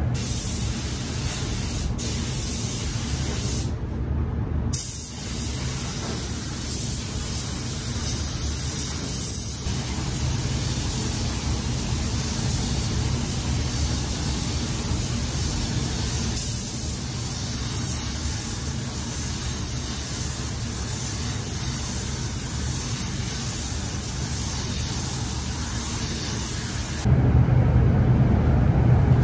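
Compressed-air paint spray gun hissing steadily as it sprays sealer, with a brief let-off about four seconds in. A steady low hum runs underneath. Near the end the spraying stops and the hum gets louder.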